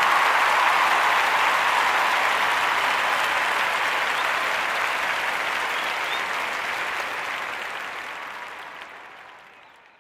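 Applause from a large crowd, a dense steady clapping that fades out gradually over the last few seconds.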